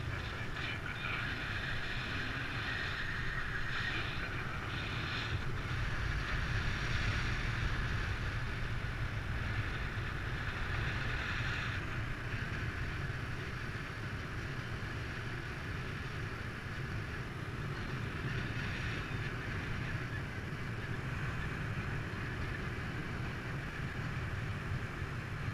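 Steady rush of airflow over a paraglider's camera microphone in flight, a low rumbling wind noise that swells a little a few seconds in.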